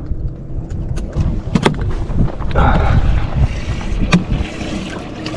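Wind buffeting the microphone on a fishing boat, a steady low rumble that gets louder and hissier about halfway through, broken by a few sharp clicks and knocks.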